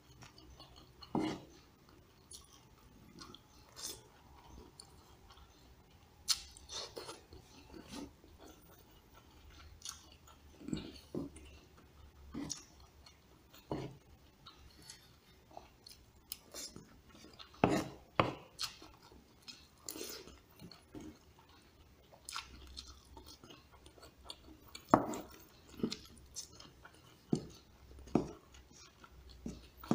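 Close-miked chewing and eating sounds as a person eats rice with soto kuning chicken: wet mouth noises and irregular short clicks, some from a metal fork against the plate.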